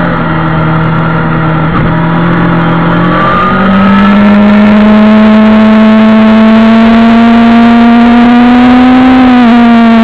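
Suzuki GSX-R750 SRAD's inline-four engine, heard loud from on board at speed. The engine note sits lower for the first three and a half seconds, steps back up as the bike accelerates, then climbs slowly, with a brief dip in pitch near the end.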